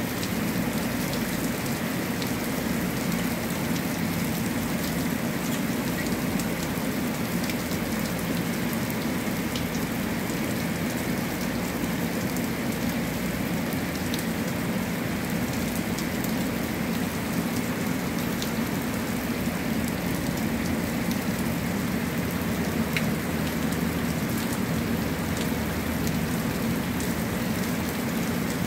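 Heavy rain pouring down onto a concrete platform: a steady hiss of rainfall with scattered single drop taps.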